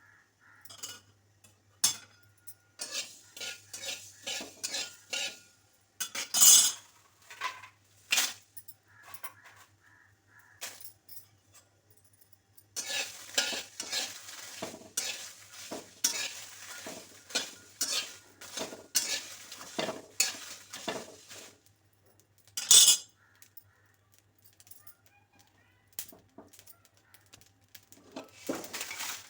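Metal spoon stirring and scraping dry-roasting spices and lentils in a pan, in runs of quick scraping strokes with clinks against the pan, and two sharper knocks about six and a half and twenty-three seconds in.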